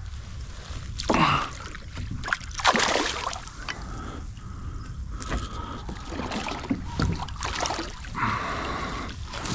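Water sloshing and dripping at the side of a kayak while a hooked pickerel is landed, with a few short breathy gasps.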